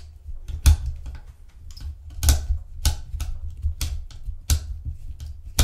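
A series of irregular sharp clicks and knocks of hard plastic worked by hand: the small plastic fan housing around the vacuum's little motor being twisted and pried at, with dull handling bumps beneath.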